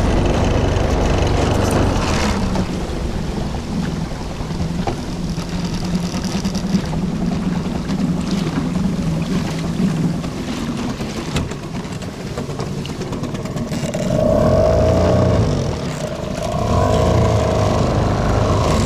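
A small boat motor running steadily, its note changing in the second half.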